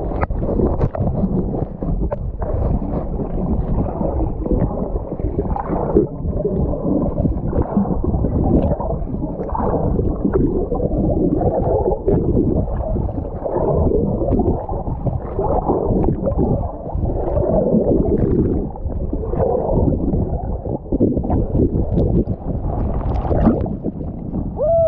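Muffled sloshing and gurgling of rough sea water around a camera carried by a swimmer in the open ocean, with a continuous low rumble of wind and swells.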